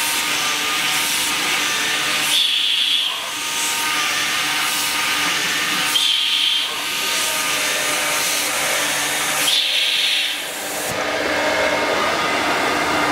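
KOCH Windoor 510 CNC woodworking machining center running as it machines a wooden profile: a steady loud rush of the cutter and dust extraction, with a brief high-pitched whine three times, a few seconds apart.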